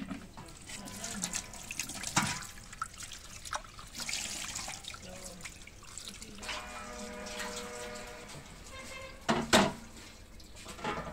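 Water splashing and dripping as leafy greens are rinsed by hand in a water-filled clay bowl at a steel sink, with a tap running. Near the end come two sharp knocks, the first the loudest, as clay bowls are set down.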